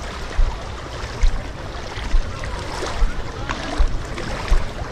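Shallow sea water swishing and splashing around a person wading, with a dull low thud about once a second in step with the strides.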